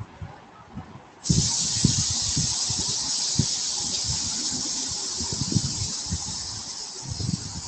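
A loud, high-pitched hiss cuts in suddenly about a second in and holds steady, easing slightly toward the end, over scattered low knocks and bumps.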